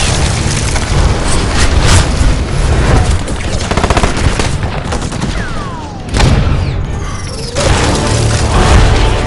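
Film action soundtrack: rapid gunfire and booming blasts with music underneath, a falling whistle about five seconds in, and a heavy blast about six seconds in.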